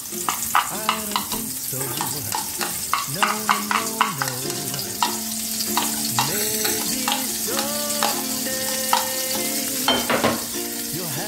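Minced garlic sizzling as it goes into hot melted butter and olive oil in a frying pan, with repeated sharp clicks and taps of a spoon scraping garlic out of a glass bowl and knocking against the pan.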